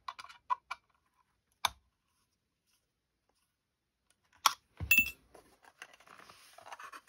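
Light metallic clicks and taps of a small screwdriver working a screw on an aluminium scope mount, with one sharp click a little under two seconds in. Near the middle the mount is picked up and handled: a loud click and a knock, then a faint rubbing rustle.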